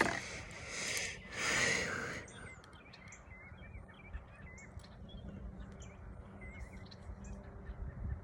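Quiet lakeside ambience with small birds chirping faintly, after a brief rush of noise in the first two seconds.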